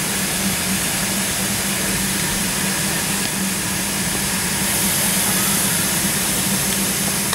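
Narrow-gauge steam locomotive standing with steam up: a steady hiss of steam over a low, even hum. The hiss grows a little stronger about halfway through.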